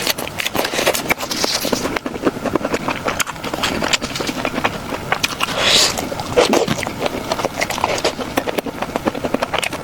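Close-miked eating sounds: chewing, with many quick clicks and smacks, and a short hissing slurp about six seconds in.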